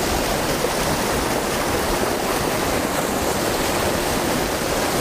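Mountain trout stream running, a steady and close rush of water without a break.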